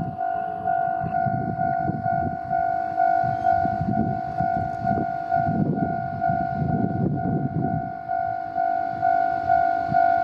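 Japanese level-crossing alarm ringing its 'kan-kan' two-tone warning steadily, about two and a half strikes a second. Under it, the low rumble of a Nagara River Railway diesel railcar running over the crossing fades out about eight seconds in.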